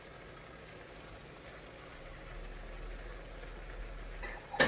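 Faint steady hiss of adobo simmering in the pot, with one short sharp knock near the end.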